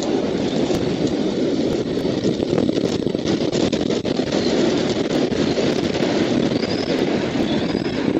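Steady wind rumble on an outdoor nest microphone, with a few faint, high, short chirps now and then.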